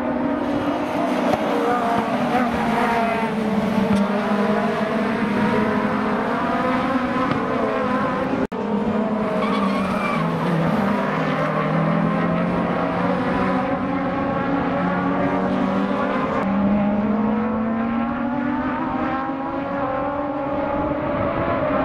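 Race car engines running hard on a circuit, their pitch rising and falling through gear changes as the cars pass, with tyre squeal. A sudden break about a third of the way through.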